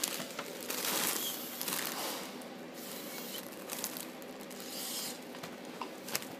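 Foil helium balloon crinkling and rustling as it is squeezed against the mouth, with a long hissing intake of helium from it starting about a second in and a shorter one near the end.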